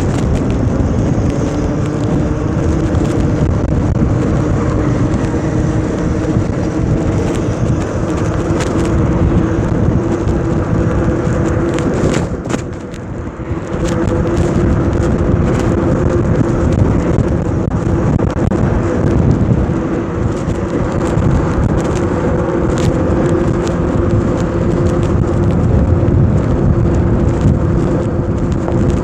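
Wind buffeting the microphone of a moving electric motorbike, with the motor's steady hum underneath and scattered light clicks. Both ease off briefly about halfway through.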